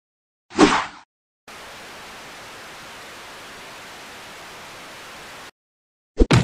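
Steady hiss of screen static from a Lego laptop showing a snowy screen, lasting about four seconds and cutting off suddenly. A short sound comes about half a second in, and two quick sharp sounds near the end.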